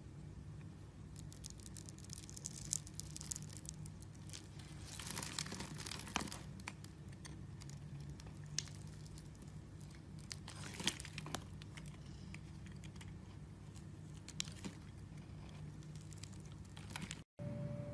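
A blade cutting and scraping into a bar of soap, with many small crisp crackles and a few denser scraping strokes. It stops abruptly near the end.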